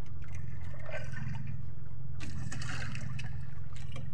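Sea water splashing and trickling against a small outrigger boat's hull, in brief splashes about a second in and again from about two to three seconds in, over a steady low rumble.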